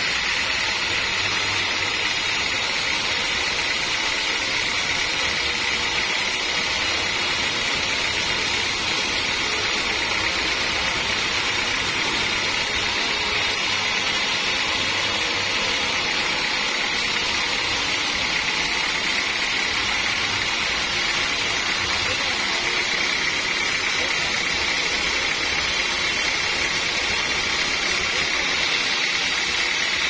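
Band sawmill cutting lengthwise through a large acacia log, a steady high hiss of the blade in the wood over the running machine.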